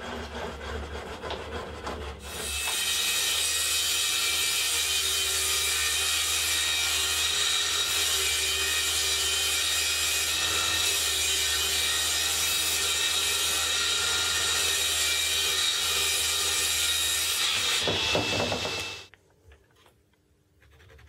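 Table saw ripping a sheet of plywood: the blade runs for a couple of seconds, then the long, steady cut goes on for about sixteen seconds, with a high ringing whine over a constant motor hum. Near the end the saw winds down and stops.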